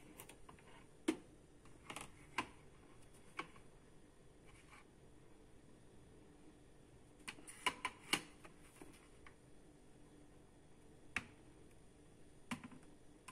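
Faint, scattered clicks and taps, about ten of them, with a small cluster about seven to eight seconds in: handling noise as the LED light bar is moved and set in place.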